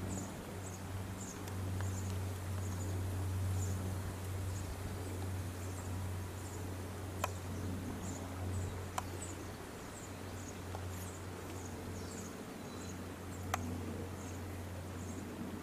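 Short high-pitched chirps from a small animal, repeating about twice a second over a steady low hum, with three sharp clicks along the way.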